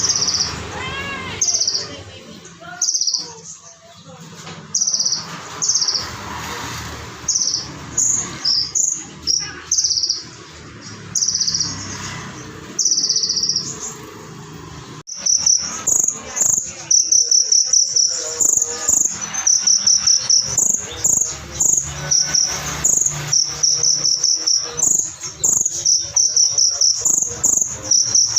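A konin (kolibri ninja) sunbird singing sharp, high trilled phrases mixed with cricket-like chirping. About halfway through, the song turns into a fast, steady run of short high chirps.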